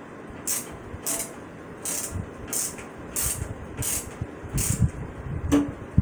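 Hand screwdriver driving a screw into the plastic frame of a new PC case fan, a short scratchy squeak with each turn, about eight in all at a steady pace. The screw is cutting fresh threads in the plastic, so it turns stiffly.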